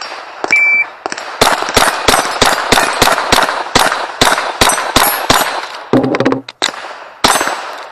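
A shot-timer start beep, then a rimfire rifle fired rapidly in a timed steel-challenge string: about fifteen sharp shots, roughly three a second, with hits on steel plates ringing after some of them.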